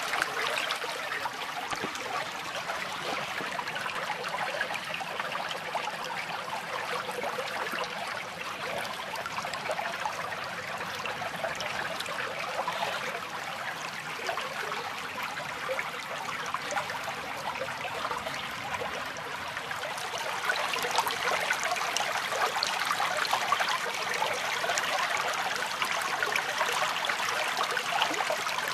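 Shallow woodland stream running and trickling, a steady rush of water that grows a little louder about two-thirds of the way through.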